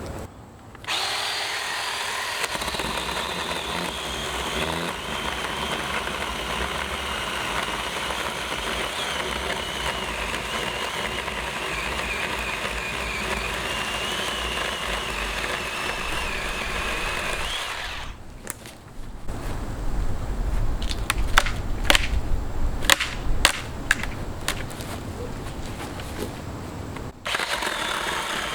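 Ryobi 18-volt cordless 10-inch chainsaw running: a steady electric motor whine with chain noise. About two-thirds of the way through it gives way to a lower, heavier rumble broken by sharp cracks and snaps as the saw works into the tree, then the steady running sound returns near the end.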